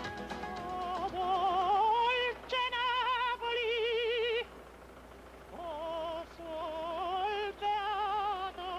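Music: a singer in operatic style holding long notes with a wide vibrato, with a short quieter gap about halfway through.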